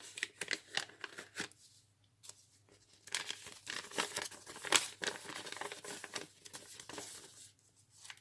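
Paper pages of a handmade junk journal rustling and crinkling as they are turned and handled: a few short rustles, then a denser stretch of crinkling from about three seconds in until near the end.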